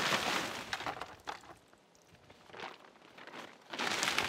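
Rustling and crackling in irregular bursts, as from pushing through dry weeds and debris, loudest at the start and again near the end.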